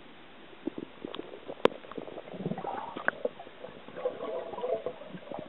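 Muffled underwater sound picked up by a submerged camera: water gurgling and sloshing with scattered knocks and clicks, one sharp knock a little under two seconds in.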